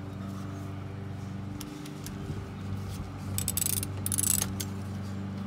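Hand ratchet clicking in two short runs, about three and a half and four seconds in, as it turns the oil filter cover screw of a Sea-Doo RXPX 300, over a steady low hum.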